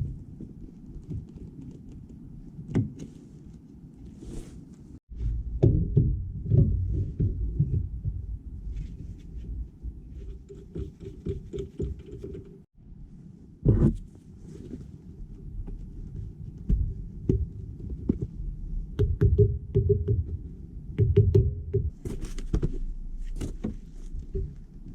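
Irregular knocks and thuds over a low rumble, with a few sharper clicks; the sound cuts out briefly twice.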